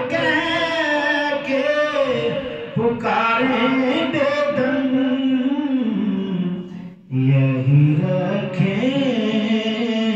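A naat, an Urdu devotional poem in praise of the Prophet, sung solo by one voice without instruments in long, ornamented melodic lines, with a brief pause for breath about seven seconds in.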